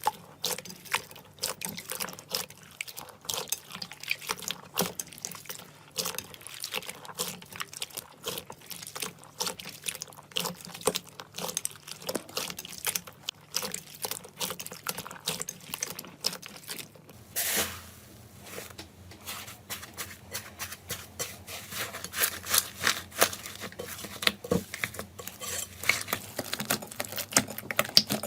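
Slime being squeezed, stretched and pressed by hand, making a run of dense, irregular wet clicks and pops. About two-thirds of the way through, a brief rush of noise comes in and the clicking then carries on against a different background.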